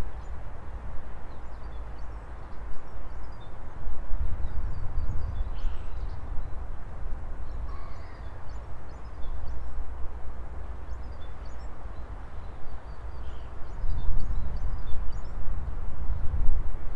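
Outdoor ambience: a low, uneven rumble, louder about four seconds in and again near the end, with faint small-bird chirps scattered over it.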